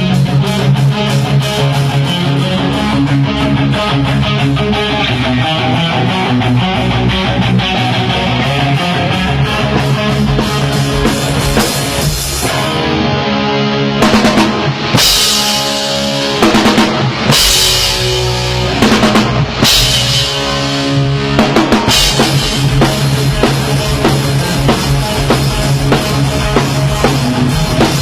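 Live heavy-metal rock band playing at full volume: drum kit with bass drum and cymbals under a dense wall of guitar and bass. Loud cymbal crashes stand out in the middle stretch.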